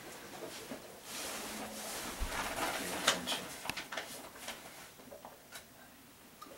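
Skis scraping and hissing over packed snow as a giant slalom racer carves past, loudest in the first half, with several sharp clicks after it.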